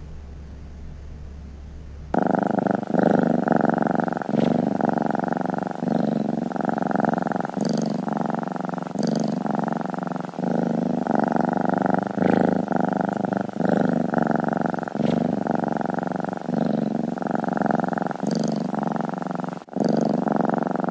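Domestic tabby cat purring loudly and continuously, close to the microphone, swelling and dipping with each breath; it starts abruptly about two seconds in, after a faint low hum.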